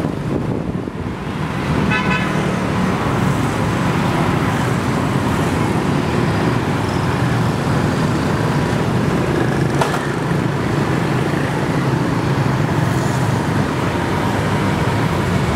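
Steady low engine noise, with a short high tone about two seconds in and a sharp click near the ten-second mark.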